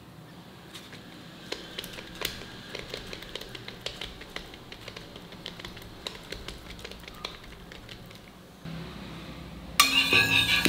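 Fingers patting and pressing banana thalipeeth dough flat on an oiled banana leaf, making many small soft pats and sticky clicks. Near the end, music starts loudly.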